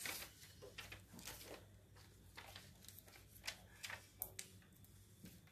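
Near silence: quiet room tone with a low hum and a few faint, scattered clicks.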